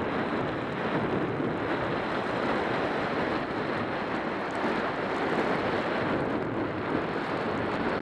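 Steady rush of wind over the camera microphone while skiing fast downhill, mixed with the continuous hiss of skis carving on groomed snow.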